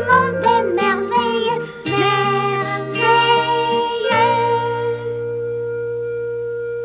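Closing bars of a children's song, ending on one chord held steadily from about four seconds in.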